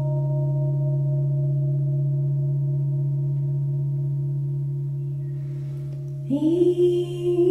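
Crystal singing bowl ringing with a low steady tone and overtones, slowly fading. About six seconds in, a second crystal bowl starts to sing as a mallet is circled around its rim: a new tone swells in, sliding up to pitch, with a wavering pulse.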